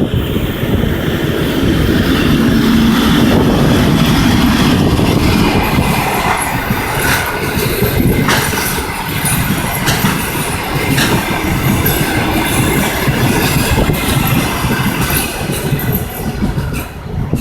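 A passenger train hauled by a TEP70 diesel locomotive passing close by. Its diesel engine hums loudly at first, then the carriage wheels click in a steady rhythm over the rail joints as the cars roll past.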